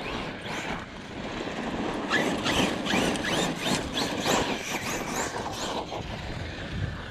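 Large electric RC truck driving hard on dirt: the brushless motor whines up and down in quick bursts of throttle over the crunch of tyres on gravel, busiest in the middle of the stretch.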